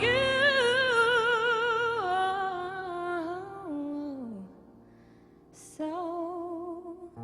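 Female singer's voice on a wordless melodic run with strong vibrato, stepping down in pitch and sliding lower until it fades about four and a half seconds in. After a short lull she takes up another held note with vibrato.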